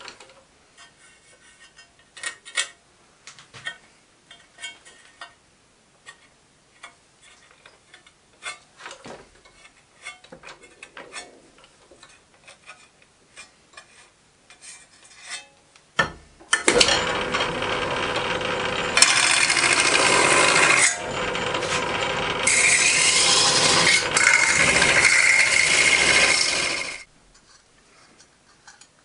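Light clicks and taps as the annealed copper disc is handled on the lathe, then the lathe runs for about ten seconds while the copper disc is spun over a former, the tool rubbing and scraping on the copper, louder in two stretches, before it stops abruptly.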